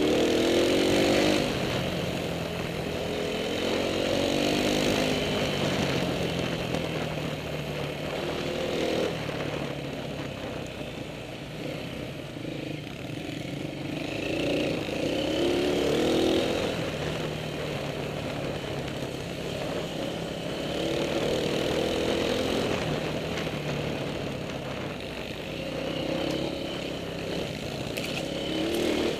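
Dirt bike engine on the move, revving up and easing off again and again, its pitch rising and falling every few seconds.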